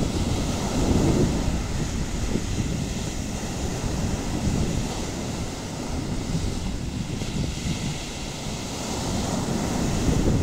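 Sea waves breaking and washing up on a sandy beach, a steady rushing surf that swells louder about a second in and again near the end.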